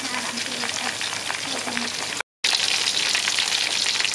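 Hot oil sizzling and crackling as cubes of tofu and fried tofu puffs deep-fry. After a brief break about two seconds in, meatballs fry in bubbling oil, with a slightly louder, denser sizzle.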